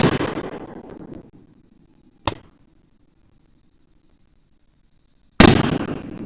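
Fireworks shells bursting overhead: a loud boom right at the start and another about five seconds in, each trailing off in a rolling echo over about a second, with a short sharp crack between them.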